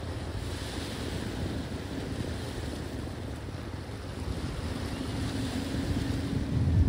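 Wind buffeting the microphone over the wash of waves on rocks, with a faint steady low hum underneath; a stronger gust of rumble comes near the end.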